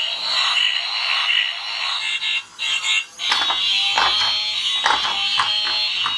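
Battery-operated toy oil tanker truck's electronic sound module playing a shrill, tinny siren-like tune. From about three seconds in there are short plastic knocks as the truck drives about the plastic tub.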